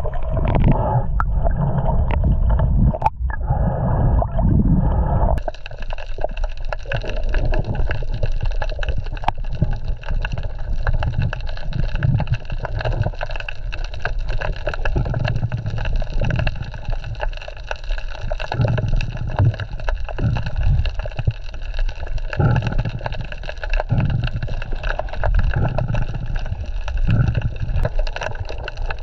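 Muffled underwater noise picked up by an action camera in its waterproof housing while freediving: water rushing and sloshing past the housing in repeated low surges.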